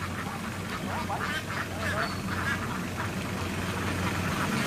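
A large flock of laying ducks quacking continuously, many calls overlapping, over a steady low hum.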